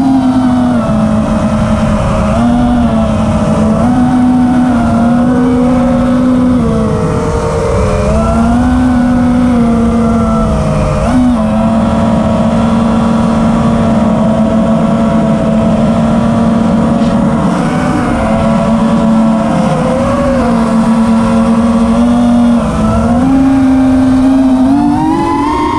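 FPV quadcopter's brushless motors and propellers whining, heard loud from the onboard camera over a low wind rumble, the pitch stepping up and down with the throttle. Near the end the pitch rises sharply as the drone punches upward.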